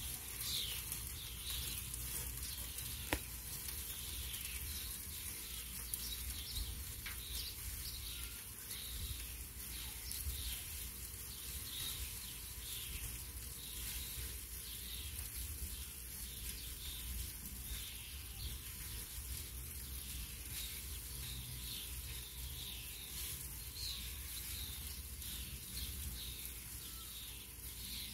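Chicken thighs and bratwursts sizzling on a closed charcoal grill, grease crackling as it drips onto very hot coals while the grill heats toward 500°F. There is a steady crackling hiss and one sharp click about three seconds in.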